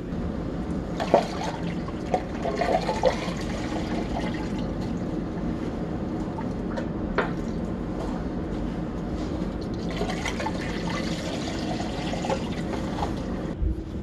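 Water-glycol mix poured steadily from a pail through a funnel into a heat pump's loop reservoir, a continuous rush of liquid. A few short knocks are heard, the sharpest about a second in.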